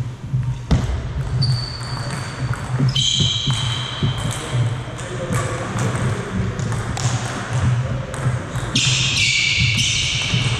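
Sports-hall background with no play at the table: scattered sharp clicks and bounces of table tennis balls, a few high squeaks of sneakers on the wooden floor about three seconds in and again near the end, and faint voices over a steady low hum.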